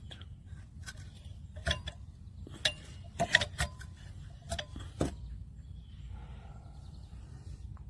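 Hard metal clicks and clinks, about six scattered knocks with a brief ring, from handling a brass pressure vacuum breaker assembly and its fittings, over a low steady background rumble.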